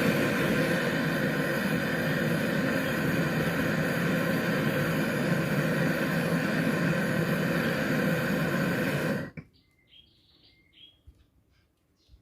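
A loud, steady hissing rush that cuts off suddenly about nine seconds in, followed by a few faint bird chirps.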